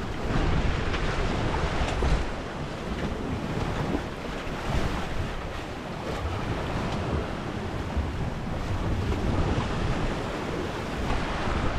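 Wind buffeting the microphone over the rush of big waves and water along the hull of a sailboat running fast under spinnaker, a dense gusting noise heaviest in the low end.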